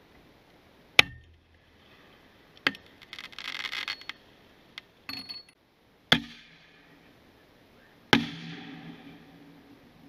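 Homemade 37mm serpent, crackle and star-cluster rounds going off: four sharp bangs, about a second in, near three, near six and near eight seconds. Between three and four seconds there is a stretch of dense crackling, and a shorter crackle comes near five seconds.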